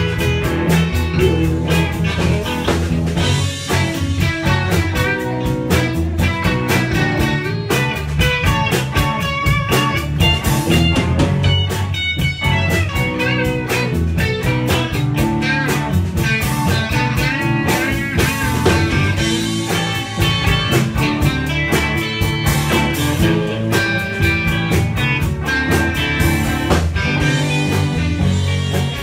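A rock band with two electric guitars, an electric bass and a drum kit playing a song together. Guitar lines bend in pitch over a steady bass and drums.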